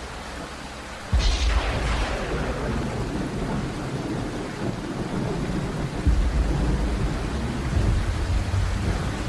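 Thunderclap about a second in, a sharp crack falling into a long rumble, over steady rain; a second low rumble swells around six seconds.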